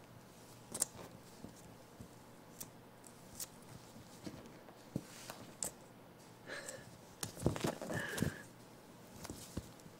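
Baby cinnamon capuchin monkey scrambling about on a plush blanket and against a mirror: scattered light taps and rustles, busiest late on, with two short high-pitched squeaks from the monkey, about two-thirds through and near the end.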